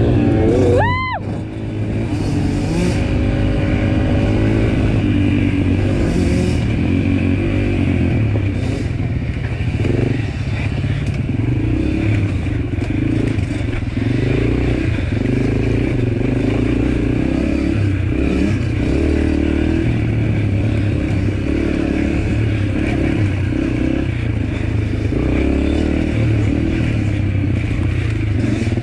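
Dirt bike engine running under constantly changing throttle while riding a rough trail. About a second in there is a brief high whine that rises and falls sharply.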